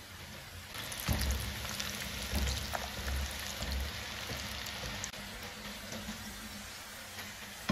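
Potato cubes deep-frying in hot oil: a steady sizzling crackle that grows louder about a second in, with a few dull low knocks during the first few seconds.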